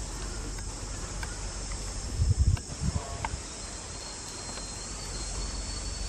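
Steady high-pitched insect chorus, with a second thin high tone joining about halfway through. A few low thumps on the microphone about two seconds in are the loudest sounds.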